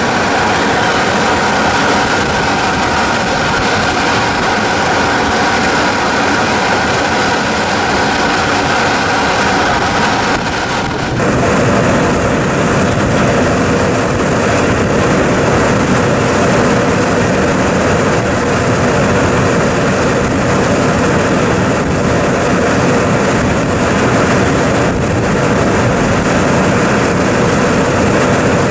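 Volcanic fumaroles of La Soufrière's South Crater blasting out pressurised gas with a continuous, deafening noise like a jet engine's turbines. About eleven seconds in it dips for a moment, then goes on deeper.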